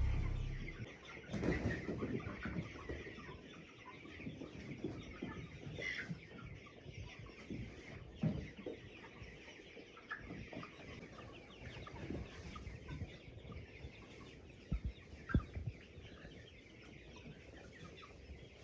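A flock of broiler chickens clucking and calling softly in their coop, with a couple of dull knocks about fifteen seconds in.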